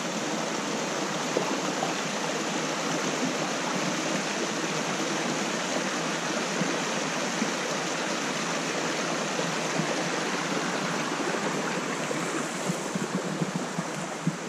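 Steady rushing of a stream's flowing water.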